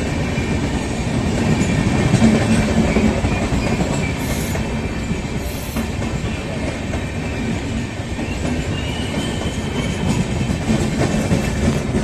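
A train passing over a level crossing, a steady loud rumble of wheels on the rails that goes on without a break.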